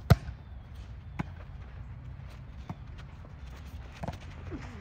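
A volleyball being struck by players' hands in a rally: about four sharp smacks spaced a second or so apart, the first and loudest right at the start. A brief shout comes near the end.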